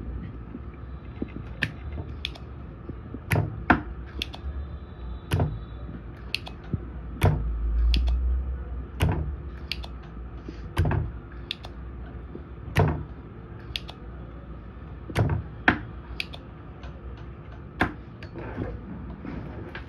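Irregular sharp taps and clicks of a soldering iron tip working against a circuit board, over a steady low hum.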